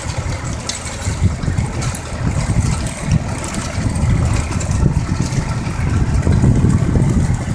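Tractor engine running with a steady low rumble, growing a little louder in the last couple of seconds.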